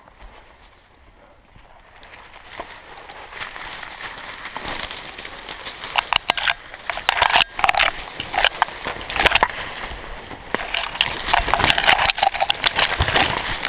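Dense scrub and branches scraping, rustling and crackling against clothing and the camera as a person pushes through thick undergrowth, with many sharp twig cracks. Faint for the first couple of seconds, then growing louder and busier.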